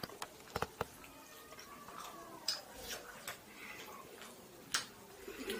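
Eating sounds: irregular wet clicks and smacks of chewing at close range, with the sharpest click a little before the end.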